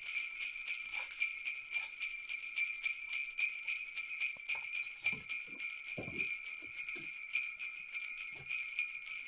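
Jingling sleigh bells shaking in a quick, even rhythm, a Christmas-style music bed that cuts in abruptly, with a few faint low thuds underneath around the middle.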